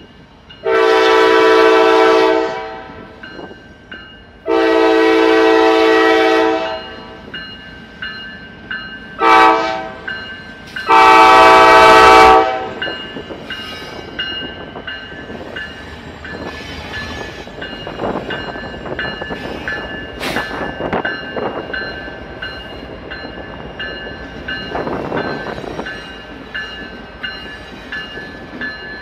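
Diesel locomotive horn on a GE ES44AC sounding the grade-crossing signal: long, long, short, long. A crossing bell rings steadily throughout. After the horn, the lead locomotives run past with engine and wheel-on-rail noise.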